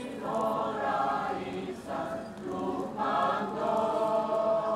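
Voices chanting a slow Greek Orthodox Good Friday hymn in several long, held phrases.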